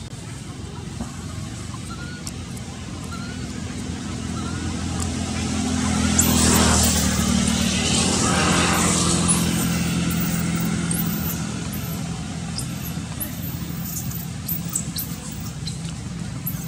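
A motor vehicle's engine passing: a low steady drone that swells to its loudest about six to nine seconds in, then slowly fades. Short high chirps sound over it.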